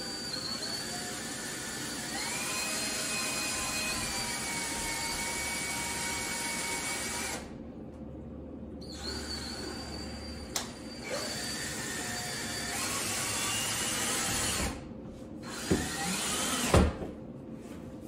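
Cordless power screwdriver running in long stretches, its motor whine shifting in pitch as it drives screws that fix a door stopper's wall plate to a door. It stops briefly twice, about seven seconds in and again near fifteen seconds, and a few sharp knocks come near the end.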